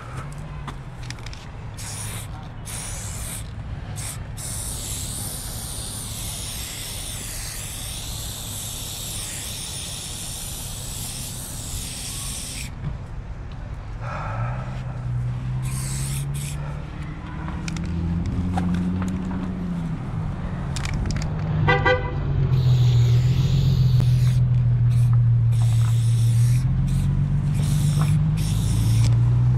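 Aerosol spray-paint can hissing in long sprays for the first dozen seconds. Then a vehicle engine runs close by, getting louder through the second half, with a brief toot about two-thirds of the way in.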